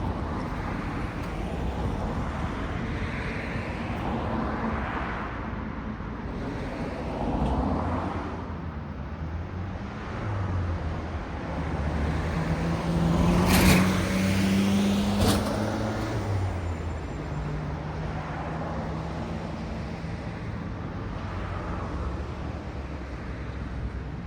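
Road traffic passing through an intersection: a run of vehicles going by, with engine drone and tyre noise swelling and fading. The loudest pass comes around the middle, with two sharp knocks about a second and a half apart.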